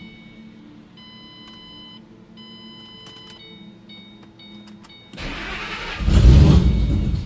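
The 2008 Mustang GT's 4.6-litre V8 starts on a jump starter: it cranks from about five seconds in, then catches loudly about a second later.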